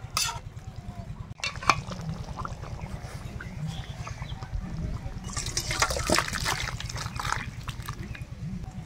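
Thick chicken curry being ladled and poured out of a wok into a steel bowl: a few sharp metal clinks near the start, then a longer wet pouring and sloshing with clinks in the second half, over a steady low rumble.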